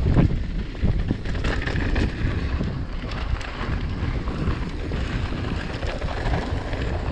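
Wind buffeting the microphone of a helmet or bar camera on a Marin Alpine Trail Carbon 2 mountain bike descending a dirt trail, with tyres rolling over dirt and scattered clicks and rattles from the bike over bumps.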